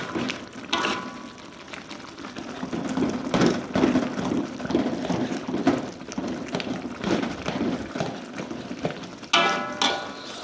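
A metal spatula stirring and scraping fish in a sizzling pan, with irregular scrapes and knocks. Near the end come a couple of ringing metallic clanks of spatula against pan.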